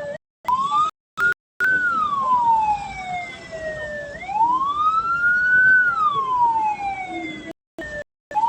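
Hearse siren wailing, its pitch sliding slowly down, then up, then down again. Near the start and the end the sound drops out in several short gaps.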